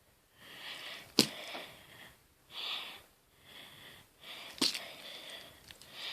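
A person breathing and sniffing close to the microphone in several short swells, with two sharp clicks, about a second in and again near the middle.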